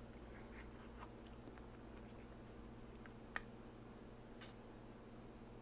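Faint crinkling and scratching of a peel-off lid being pulled from a small plastic shot cup, then two short sharp clicks a little over three seconds in and again about a second later.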